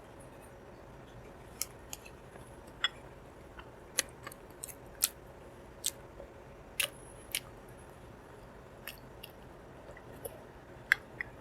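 Close-miked eating: irregular sharp, wet clicks and smacks of a mouth chewing, about fifteen over the stretch, with the loudest near the end.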